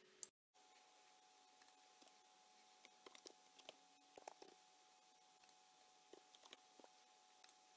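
Faint, irregular clicks of a computer keyboard as values are typed in, over a faint steady hum.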